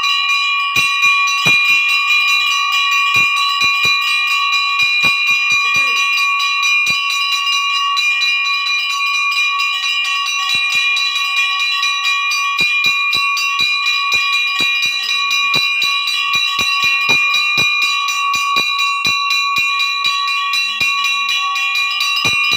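Puja bell ringing continuously with an even, unbroken metallic ring, with scattered light knocks beneath it.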